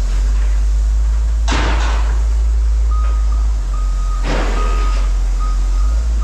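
A heavy vehicle's reversing alarm beeping about twice a second, starting about halfway through, over the steady low rumble of its diesel engine. There are two short bursts of hiss, at about a second and a half in and again a few seconds later.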